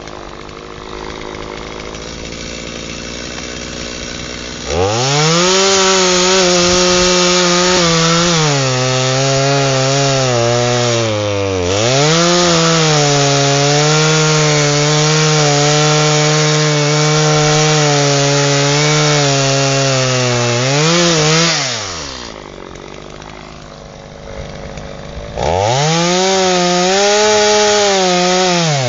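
Two-stroke chainsaw idling, then revved to full throttle about five seconds in and cutting through an aspen log, its pitch sagging and recovering as the chain bites. It drops back to idle a little after two-thirds of the way through, then revs up and cuts again near the end.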